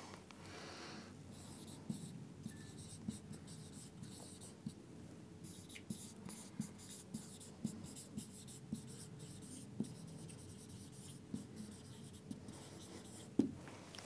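Dry-erase marker writing on a whiteboard: faint squeaks, scratches and taps of the tip as words are written, with a single sharper knock near the end.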